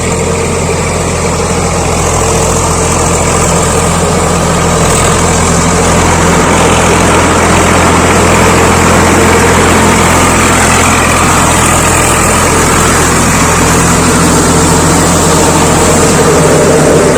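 Swaraj 855 FE tractor's diesel engine running steadily and loud, close by, growing a little louder over the first few seconds.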